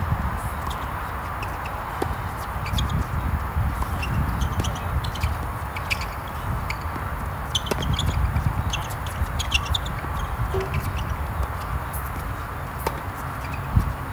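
Tennis balls being struck back and forth with rackets in a doubles rally, irregular sharp pops with the occasional shoe scuff on the hard court, one especially loud hit near the end. A steady low rumble runs underneath.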